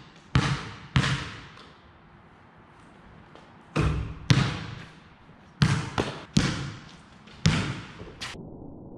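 Basketball bouncing on a concrete court. Its sharp impacts echo off the surrounding brick walls: two early bounces, a gap of a couple of seconds, then a run of bounces in the second half.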